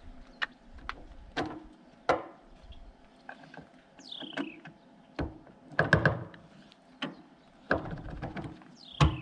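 Irregular clicks and knocks of bolts and the metal mounting bracket being handled and fitted by hand on the pontoon's aluminium deck, louder in small clusters about six seconds in and near the end. A bird gives one short falling call about four seconds in.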